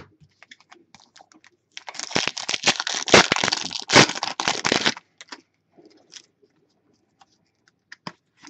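Trading-card pack wrapper being torn open and crinkled for about three seconds, with light clicks and rustles of cards being handled before and after.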